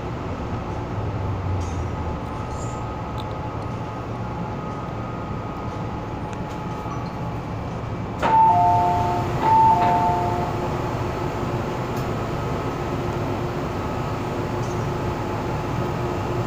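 Inside an MTR M-Train metro car running in a tunnel: a steady rumble and hum of wheels and motors. About eight seconds in, the car's PA gives a click and then a two-note chime, a high note then a lower one, played twice.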